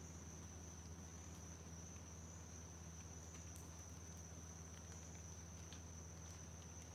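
Faint, steady high-pitched drone of insects, wavering slightly, over a low steady hum, with a few faint ticks.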